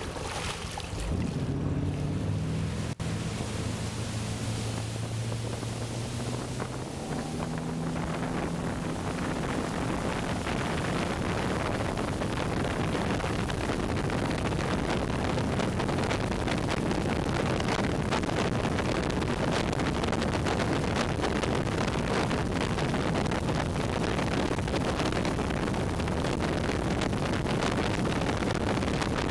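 Tow boat's engine accelerating for a barefoot water-skier's deep-water start, its pitch stepping up over the first several seconds. It then gives way to a loud, steady rush of spray and wind on the microphone as the boat runs at speed.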